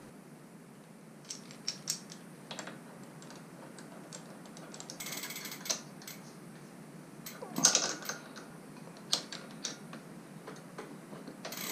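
Metal clicks and scrapes of a crank puller being threaded into a bicycle's left crank arm and turned to pull the crank off, with one louder sharp metallic clank about seven and a half seconds in.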